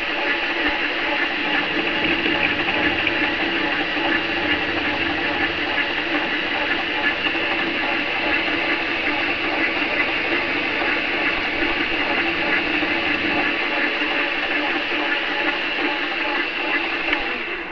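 Variable-speed metal lathe running steadily with its chuck spinning, a constant mechanical whine, then shutting off just before the end.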